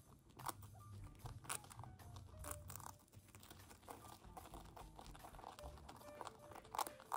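Guinea pigs crunching dry pellets: irregular crisp crunches and crumbles, a few of them sharper and louder, with faint music underneath.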